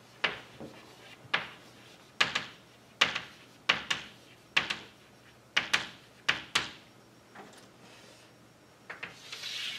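Chalk tapping and scratching on a blackboard as a line of text is written: a string of sharp, irregular clicks, one per stroke, then a longer scratchy stroke near the end.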